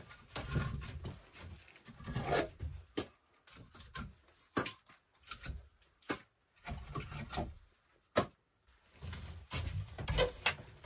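Split firewood logs being pulled from a wooden rack and stacked in the arm: repeated sharp wooden knocks as the pieces clack together, with rustling between them.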